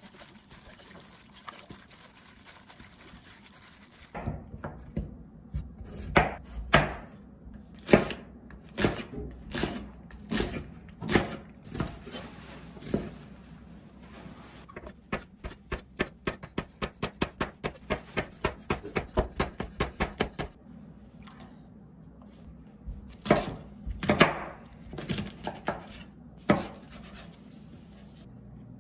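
Kitchen knife chopping vegetables on a cutting board, the blade knocking the board. It starts about four seconds in with irregular cuts, turns into a quick even run of about three chops a second, then ends with a few scattered cuts.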